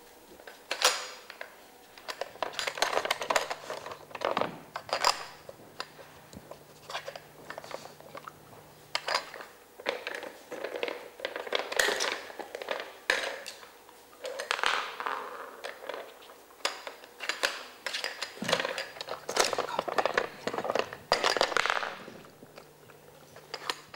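Plastic lids and cones of a dog puzzle board clattering, clicking and knocking as a dog noses and paws at them to get at the treats underneath, in an irregular stream of small hard knocks.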